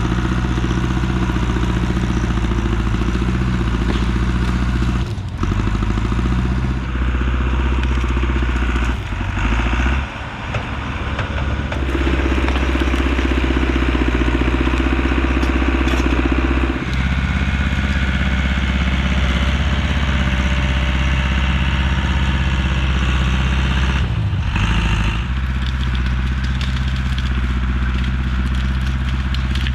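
Heavy equipment engine running hard under varying load while clearing land. Its note dips briefly several times, about five, ten and twenty-five seconds in.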